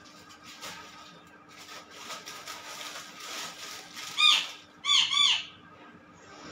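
Clear plastic garment bag crinkling as clothes are pulled out and handled. About four seconds in comes one short, loud call that rises and falls in pitch, then two more close together about a second later.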